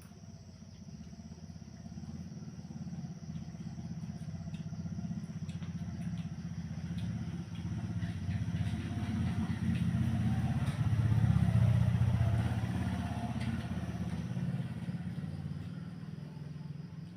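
A motor vehicle engine passing by, growing louder to a peak about eleven seconds in, then fading away.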